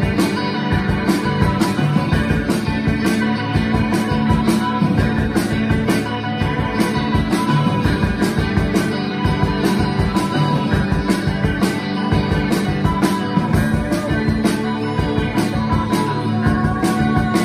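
A rock band playing live, with a drum kit keeping a steady beat under sustained instruments.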